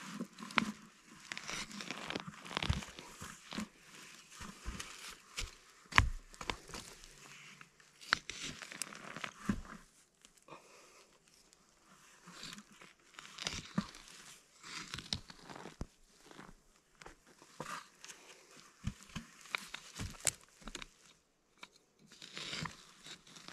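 Dry pine needles, twigs and forest duff crunching and crackling as a wooden-handled digging stick rakes through them and feet step over the branches. The snaps come irregularly, with a sharp knock about six seconds in.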